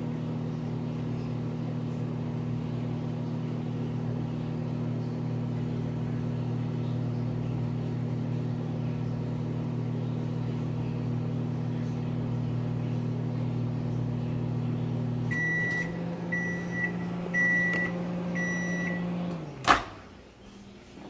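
A microwave oven runs with a steady hum. As its one-minute timer runs out about fifteen seconds in, it beeps four times about a second apart and the hum winds down. A single sharp click follows near the end.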